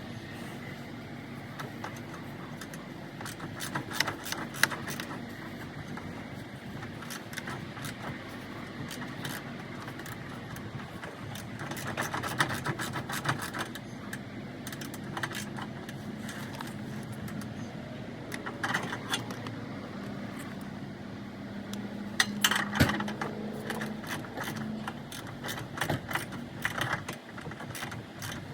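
Hand tools and metal suspension parts clinking and clanking in scattered clusters during work on a car's suspension, over a steady background hum.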